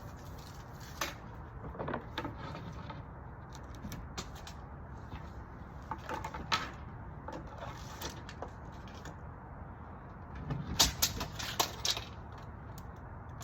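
Scattered knocks and clatters from boards and tools being handled, over a steady low hum. A burst of louder, sharper knocks comes near the end.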